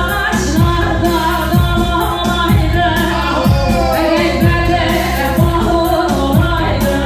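Live band music with singing over a steady drum beat.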